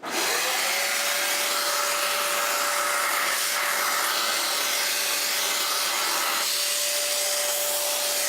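Vacuum cleaner fitted with a thin crevice nozzle switched on and spinning up to a steady whine within the first second, then running steadily with a loud hiss of suction while it draws dust out of a computer case.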